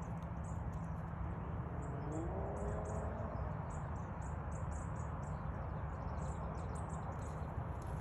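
Open-air ambience: a steady low rumble with many short, high chirps from small birds or insects scattered throughout. A faint rising tone comes in about two seconds in.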